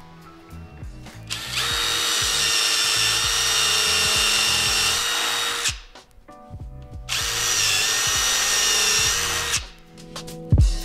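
Cordless drill with a countersink bit boring into wooden balusters: two long runs of steady motor whine, the first about four seconds, the second shorter with a slight dip in pitch as it starts to cut.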